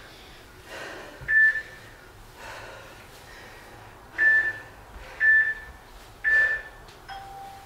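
A workout interval timer beeps: one short high beep, then three more about a second apart, then a longer, lower tone near the end, the countdown to the next interval running out. Heavy breathing after hard exercise sounds between the beeps.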